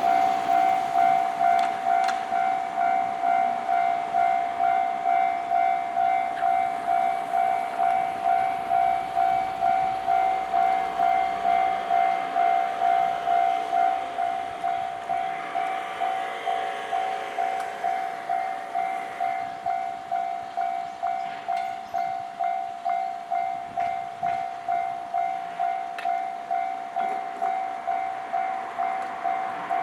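Japanese railway level-crossing alarm ringing its electronic bell in an even, steadily repeating pulse, the warning that a train is approaching and the crossing is closed.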